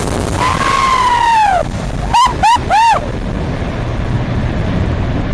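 High-pitched whoops from a person: one long rising-and-falling 'woo' and then three short quick ones, which are the loudest sounds. They come over a steady rush of wind and jet-engine noise from a departing Boeing 747.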